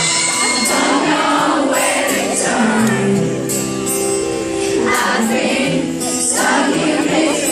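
Live pop music: a band playing with a singer, and many audience voices singing along, heard from within the crowd.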